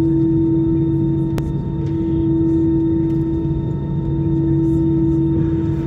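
Airbus A320 cabin noise while taxiing: a steady engine and air-system hum over a low rumble. A single sharp click comes about one and a half seconds in.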